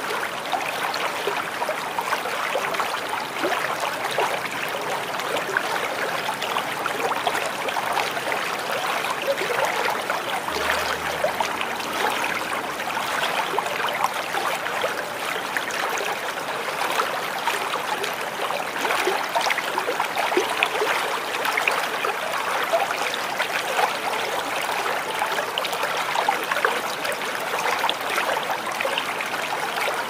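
Small waterfall: water splashing and trickling in a steady, even rush full of small splashes.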